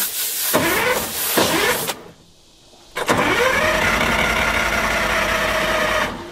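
A DROTT excavator's diesel engine is cranked by its starter without catching. A first stretch ends about two seconds in, and after a pause of about a second a longer crank begins whose whine rises and then holds steady, cutting off just before the end. The crew puts the engine's failure to start down to it not getting enough fuel.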